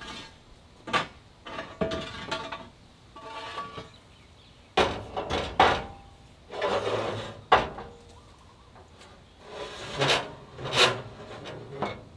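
An aluminum channel cross member being slid and set down on an aluminum flatbed frame: scraping of metal on metal and several sharp clanks as it is knocked into place, some with a short ring.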